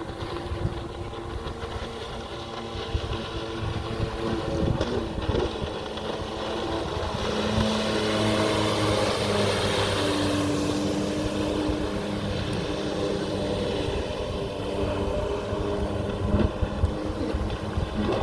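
Jet ski engine running under way with water and wind rush; its pitch shifts up and down and it grows louder about seven seconds in.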